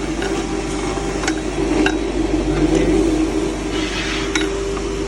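Cattle feed grinder running steadily under load as maize and other feed are fed through it, a constant hum over a rushing noise, with a few sharp metallic clinks of grain striking the housing.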